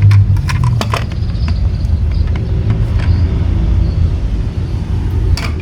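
A steady low rumble, with a few sharp clicks in the first second and again near the end.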